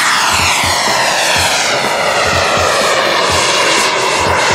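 Model turbine jet engine of a large radio-controlled Chengdu J-10 scale jet in flight: a loud, steady rushing roar with a whine that glides steadily down in pitch as it climbs away.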